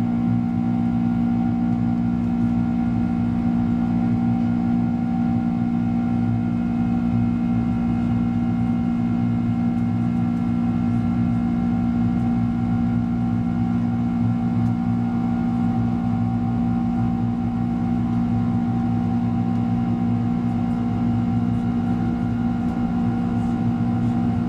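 Boeing 767-300's turbofan engines at climb power, heard inside the passenger cabin over the wing: a steady drone and rumble with several held hums that does not change.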